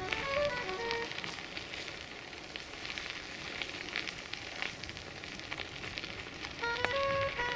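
Crunching crackle of footsteps on a gravel path, an uneven run of small ticks. A simple tune of single stepped notes plays in the first second and comes back near the end.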